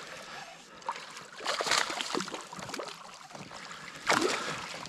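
Water splashing as a hooked smallmouth bass thrashes at the surface beside the boat. There are two louder bursts, about a second and a half in and again about four seconds in, the second as the fish is scooped into a landing net.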